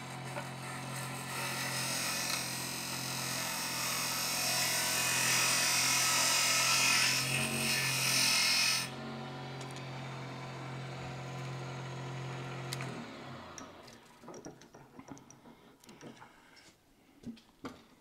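Wood lathe running with a steady motor hum while a French bedan cuts a tenon on a spinning blank, a loud hissing scrape that stops abruptly about nine seconds in. The motor runs on a few seconds more and shuts off, followed by a few light clicks and knocks.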